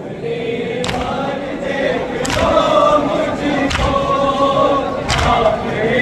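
Men's voices chanting a noha, the Shia Muharram mourning lament, in unison. Four sharp slaps, about one and a half seconds apart, fall in time with it: mourners striking their chests together in matam.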